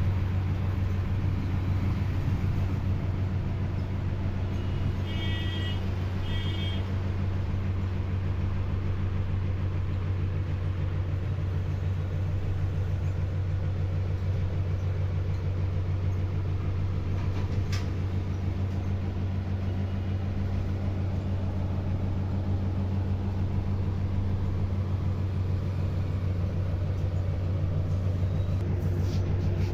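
A steady low hum, with two short high-pitched chirps about five to seven seconds in.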